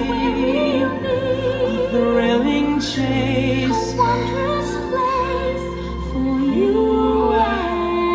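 Music with a singing voice: a held, wavering sung melody over a steady accompaniment, played through a theatre's sound system.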